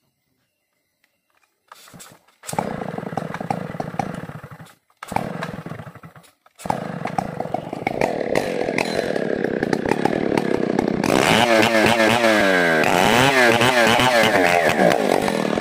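Chainsaw starting up about two seconds in, revving in two short bursts, then running continuously as it rips lengthwise through a squared matoa log. Its pitch wavers up and down under load near the end.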